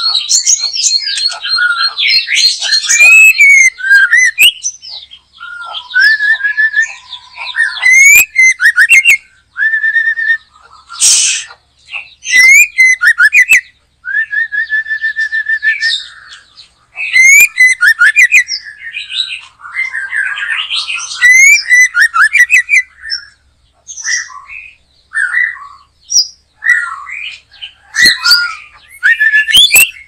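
White-rumped shama (murai batu) singing loudly: a long run of varied whistled phrases, with quick rising and falling notes and fast trills, broken by short pauses.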